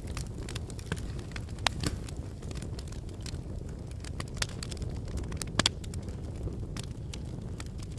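Wood fire crackling, with irregular sharp snaps and pops over a steady low rumble of the burning; the strongest pops come about two seconds in and again near six seconds.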